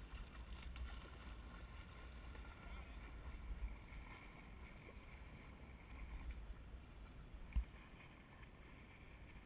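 Wind buffeting the camera's microphone, a low steady rumble, with one short knock about seven and a half seconds in.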